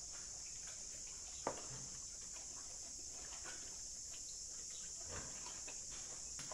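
Pig eating a watermelon slice held out to it by hand, with scattered small crunching clicks, over a steady high insect drone. A single sharp knock about a second and a half in.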